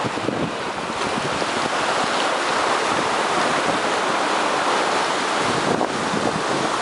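Large typhoon-driven surf breaking in a steady wash of noise, with wind on the microphone.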